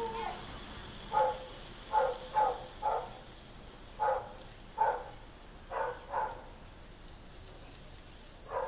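A dog barking repeatedly: about nine short, sharp barks at uneven intervals.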